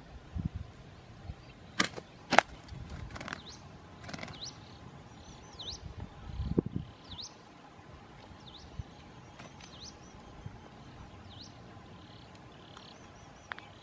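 Two sharp snaps about two seconds in, then a small bird repeating a short chirp that dips and rises in pitch, about once a second.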